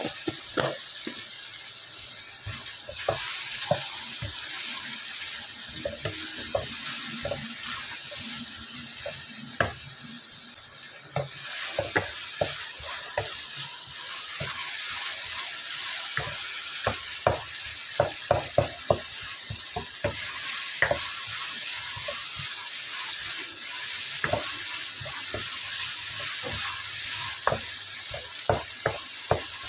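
Wooden spoon stirring an onion-tomato masala frying in oil in a metal wok: a steady sizzle with frequent sharp knocks of the spoon against the pan, which come thicker in the second half. The masala is being fried down (bhuna) until the oil separates.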